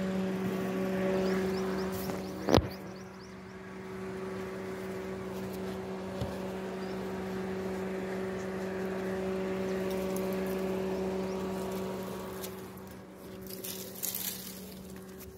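An engine or motor running with a steady hum, and a single sharp knock about two and a half seconds in.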